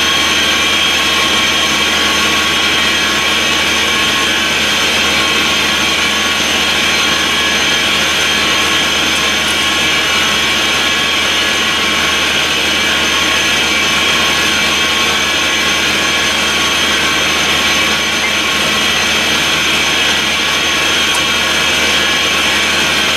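Steady drone of a portable air compressor running to supply plant air: a constant rushing noise with several high, unchanging whine tones.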